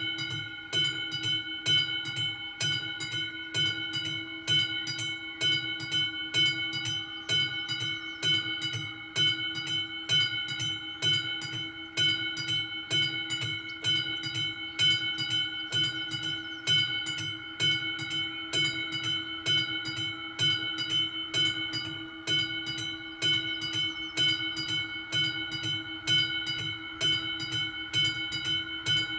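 Level-crossing warning bell ringing with rapid, evenly spaced strokes while the red warning lights flash. The crossing is active for an approaching train.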